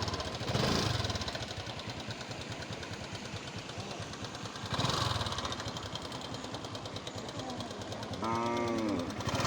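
A motor vehicle engine running with a rapid, even pulse. A short pitched sound that bends in pitch comes near the end.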